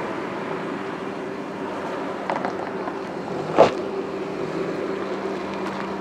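Vehicle engine running with a steady hum over road and wind noise, with a single sharp knock about midway.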